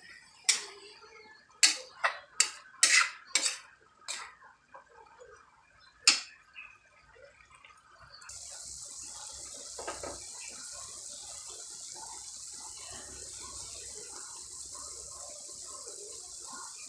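Kitchenware clinking: about nine sharp knocks of utensils against dishes or a pan over the first few seconds. About halfway through, a steady high hiss starts and keeps on.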